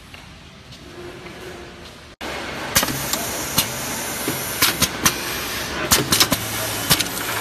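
Doypack pouch packing machine running: a steady mechanical hum with sharp, irregular clicks and clacks from its pneumatic and mechanical parts. It becomes much louder and busier after an abrupt cut about two seconds in.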